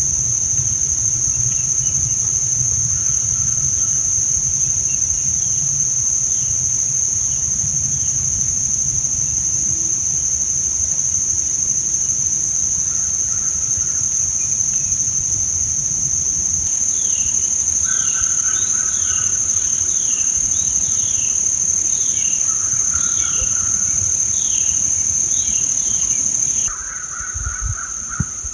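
Steady, high-pitched insect chorus with no break, with a bird calling in a run of short falling notes in the second half. The chorus drops away abruptly near the end.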